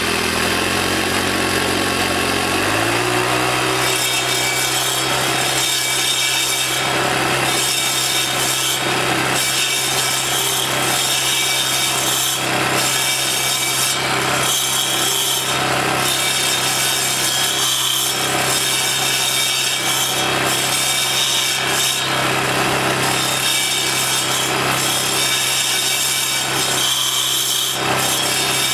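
Troy-Bilt four-stroke sidewalk edger engine, just started, speeding up over the first few seconds and then running steadily at high speed. Its stump-grinding blades chew into a tree root with a continuous, irregular rasping.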